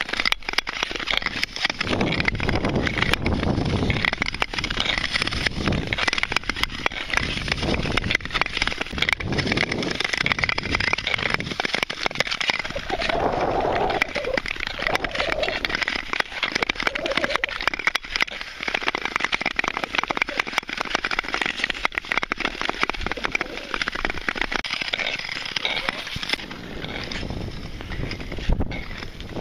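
Nordic tour skates gliding and scraping over black lake ice, a steady hiss full of sharp clicks and ticks.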